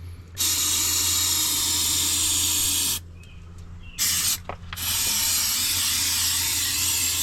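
Rust Check rust-inhibitor spray hissing as it is sprayed into a car door's inner cavity: a long burst of about two and a half seconds, a pause, a brief burst, then steady spraying again to the end.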